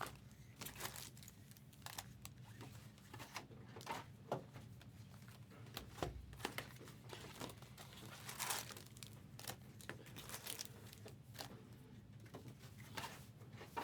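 Trading-card pack wrappers being torn open and crinkled, with irregular crackles and rustles.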